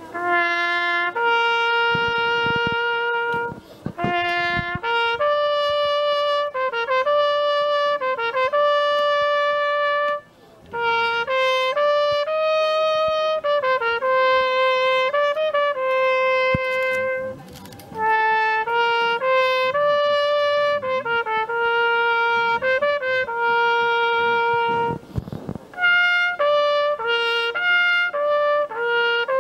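Trumpet playing a slow melody of long held notes, phrase after phrase, with short breaks between the phrases.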